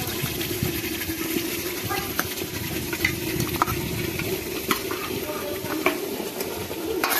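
Marinated chicken scraped with a steel ladle from a steel bowl into hot masala in a pot, sizzling steadily, with scattered light clicks and scrapes of the ladle against the bowl.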